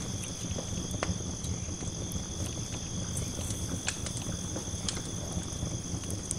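Wood campfire crackling, with a few sharp pops, over a steady low rumble and a constant high-pitched tone.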